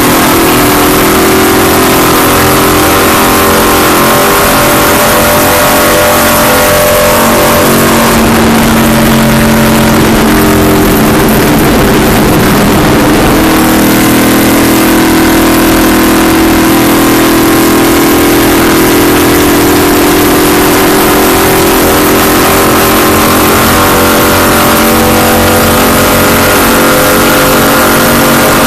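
Race car engine running hard, loud and continuous, heard from inside the car; its pitch drops and breaks up for a few seconds near the middle, then climbs again as it accelerates.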